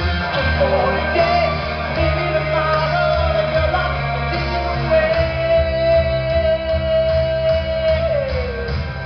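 Rock music played in a theatre, with bass, guitar and a steady beat under a long held high note that slides down near the end.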